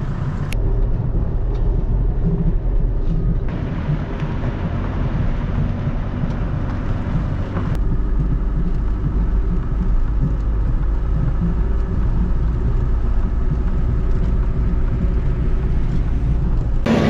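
A 1998 Sprinter motorhome's diesel engine running on the road, with a steady low rumble of road and wind noise. The sound shifts abruptly a few times.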